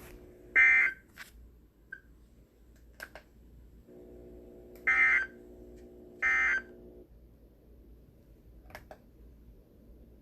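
Three short, loud electronic beeps, about a third of a second each: one near the start and two close together in the middle. A few faint clicks come between them, and a low hum runs under the middle two beeps.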